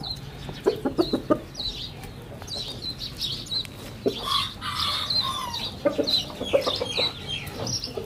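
Chickens clucking, with short high calls scattered through and a few soft taps among them.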